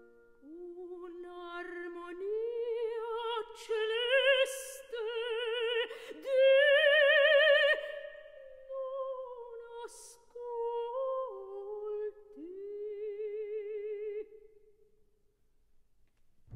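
Operatic soprano singing alone, unaccompanied, with a wide vibrato on held notes. The line climbs to its loudest notes about halfway through, then falls and dies away a couple of seconds before the end.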